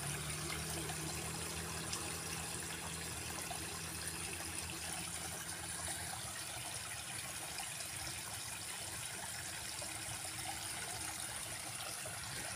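Steady trickle of water running in a small ditch.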